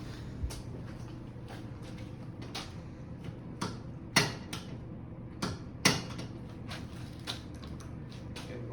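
Irregular clicks and clacks at a self-serve car wash pay machine as coins are fed in and rejected, the loudest about four and six seconds in, over a steady low hum.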